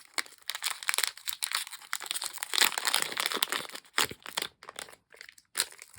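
Crinkling of a small blind bag being opened by hand, dense for about four and a half seconds, then thinning to a few scattered crackles near the end.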